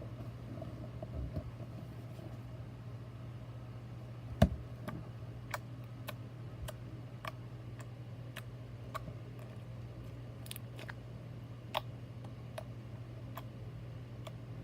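A steady low hum with a run of sharp clicks or taps, roughly one or two a second. The loudest comes about four seconds in.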